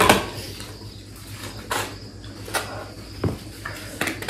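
Paper tissues rustling in hands, with a few short sniffs and small handling noises.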